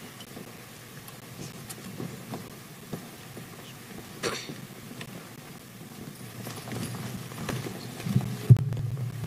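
Room noise of a large hall with a standing audience: scattered small knocks, clicks and rustling. There is a sharp click about four seconds in and a louder low thump near the end.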